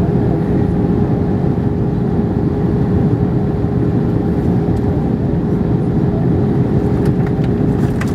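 Steady in-flight cabin noise of an Airbus A321ceo airliner during descent: a dense, even rumble of engines and airflow with a constant hum running through it. A few faint ticks come near the end.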